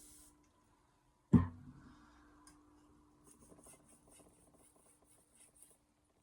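Knife edge being stroked on a Shapton Glass 4000 whetstone. The strokes stop, and a single loud knock comes about a second later. Light, quick sharpening strokes start again about three seconds in, roughly four a second.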